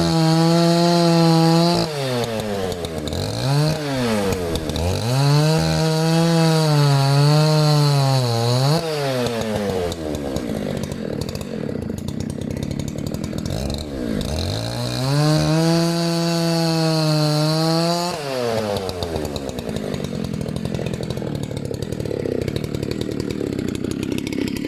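Dolmar PS-9010 90cc two-stroke chainsaw with a modified muffler, revved hard three times for a few seconds each, the pitch wavering while held high. Between the runs it drops back to a rough idle, and it is idling near the end.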